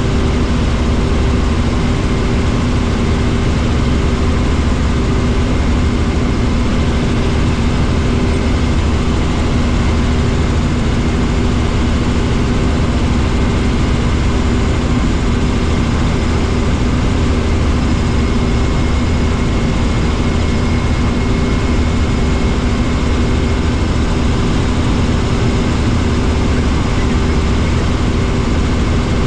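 Helicopter in cruising flight heard from inside the cabin: a loud, steady drone of engine and main rotor with a low rumble.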